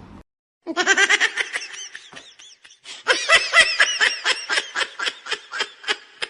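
High-pitched laughter in quick repeated bursts, about five a second, starting under a second in and running on in one long fit.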